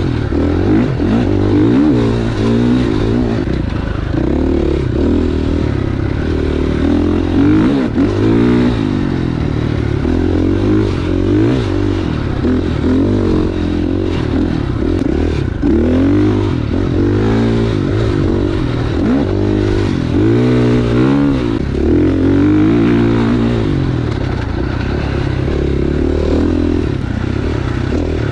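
Husqvarna FX 450's single-cylinder four-stroke engine running hard under the rider, its pitch rising and falling over and over as the throttle opens and closes.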